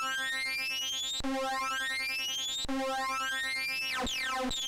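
MOS 6581 SID sound chip synthesiser (Commodore 64 sound chip, driven by a Raspberry Pi) playing a held note that is restruck about every one and a half seconds. Whistling tones sweep up and down in arcs above it: the aliasing effect popular in Commodore 64 game sound.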